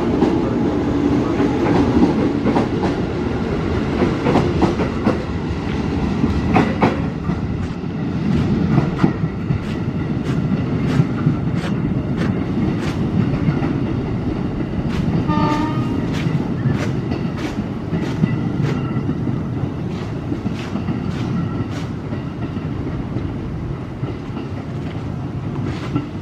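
Electric commuter train running past, a steady rumble of wheels on rail with many sharp clicks as the wheels cross rail joints and points. A short horn note sounds about fifteen seconds in.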